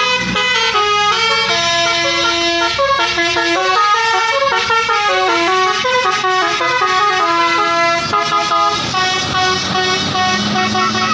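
Tour bus's 'basuri' telolet horn playing a tune, loud: a run of quick stepped horn notes that settles about nine seconds in into longer held notes over a low steady tone.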